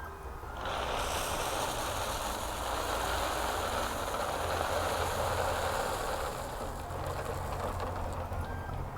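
Dry Lucky Charms cereal poured out of the box into a toilet bowl, a steady pour of many small pieces. It starts about a second in and tapers off near the end.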